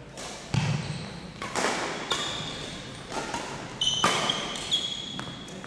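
Badminton rally: rackets striking the shuttlecock, sharp hits roughly once a second, echoing in a large gym, with short sneaker squeaks on the wooden floor between them.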